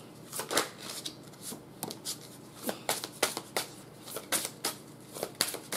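Tarot cards being handled and dealt onto a cloth-covered table: a string of short, crisp card flicks and taps, two or three a second.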